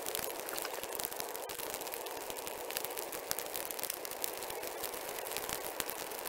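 Burning brush pile crackling, with many irregular sharp snaps and pops over a steady hiss.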